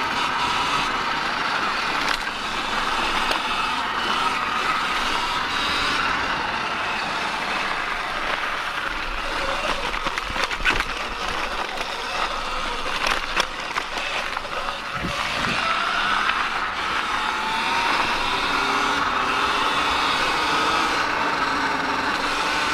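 Sur-Ron X electric dirt bike riding a dirt trail: a motor and drivetrain whine that rises and falls in pitch with speed, over tyre and trail noise. A few sharp clicks come around the middle.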